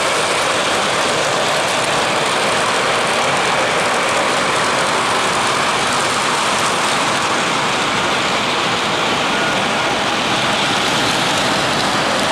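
O-gauge model trains, a Weaver GE U25B diesel pulling coal hoppers, running on three-rail metal track: a steady, even rolling noise of wheels on rails.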